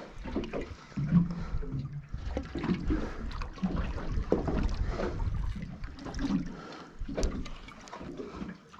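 Wind buffeting the microphone and water lapping against a small boat's hull, with a few scattered knocks on the boat.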